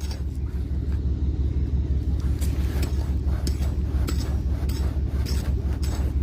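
Low, steady wind rumble on the microphone, with scattered short knocks and scrapes of a hand digging tool cutting into soil at a metal-detector target.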